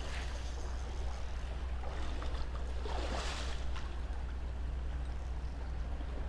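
Shallow river water running over rocks, a steady wash over a constant low rumble, with a brief louder swish about three seconds in.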